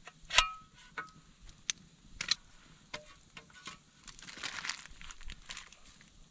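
Dishes and utensils being handled: a few sharp clinks, two of them with a short ringing tone, lighter ticks, and a soft rustle about four seconds in.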